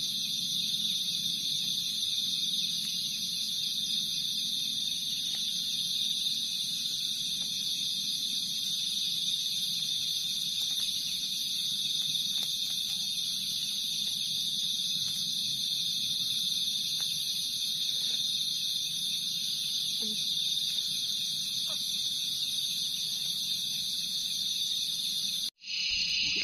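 Steady chorus of night insects, crickets or similar, shrilling at a constant high pitch, with a few faint crackles from a wood campfire. It breaks off for a moment near the end, then a different insect chorus takes over.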